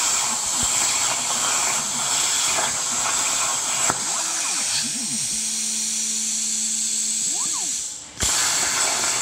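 Plasma cutter torch cutting steel plate: a steady, loud hiss of the arc and its air jet. The hiss breaks off for a moment about eight seconds in and then starts again as the torch fires for the next cut.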